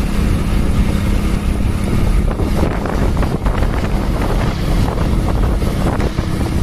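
Wind buffeting the microphone on a moving motorcycle, mixed with engine and road noise. A steady low hum fades out about two seconds in.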